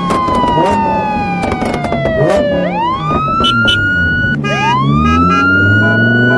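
Background music in an instrumental stretch: a siren-like synth tone falls slowly, then swoops back up twice, over a beat and bass.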